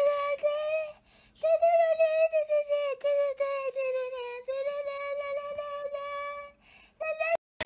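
Shiba Inus play-fighting mouth to mouth, giving a long high-pitched whining scream with a slightly wavering pitch, broken once about a second in and stopping near the end.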